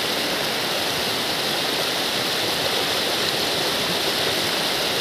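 Hill river water rushing steadily over a rock slab in a small cascade, heard close up as a loud, even rush.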